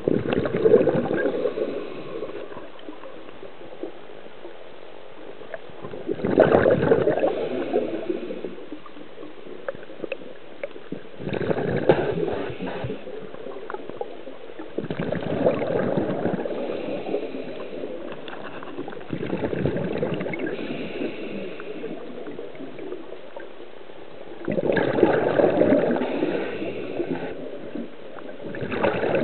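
Underwater sound picked up by a camera near a river bed: a low, steady murmur of water with a louder bubbling surge every four to five seconds.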